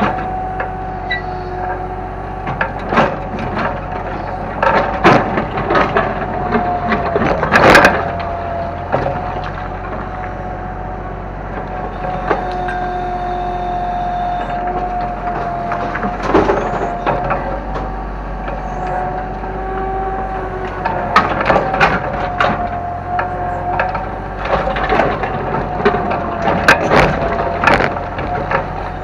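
Kobelco excavator running steadily with a constant whine that dips briefly in pitch several times, over repeated sharp cracks and crunches as the machine breaks up demolition debris.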